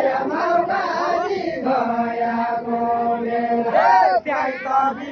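Crowd of men chanting together in unison, their voices holding a long steady note, with one voice swooping up and back down about four seconds in.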